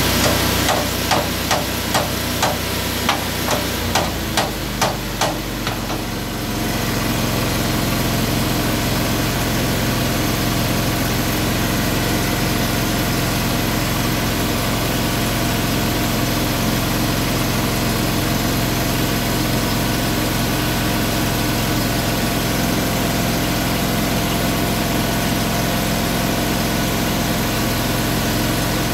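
A hammer striking metal about a dozen times, roughly two blows a second, each with a ringing tone, over a steadily running engine. After about six seconds the hammering stops and the engine runs on louder and steady.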